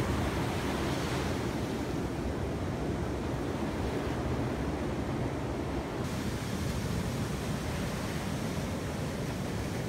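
Ocean surf washing onto a sandy beach: a steady rush of noise, slightly fuller near the start.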